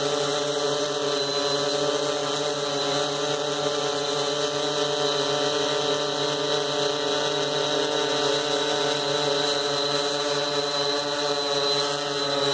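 Blade Chroma quadcopter hovering in place, its four electric motors and propellers giving a steady, unchanging hum.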